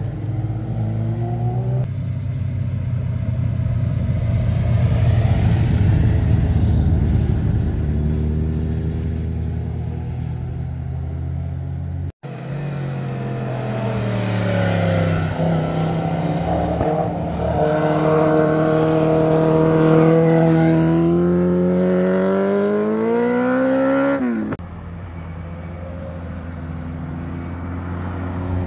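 Sport motorcycle engines accelerating out of a hairpin bend, the pitch climbing through the gears. In the loudest pass the engine note rises steadily for several seconds and then cuts off suddenly. Near the end a car engine runs at a steadier, lower note.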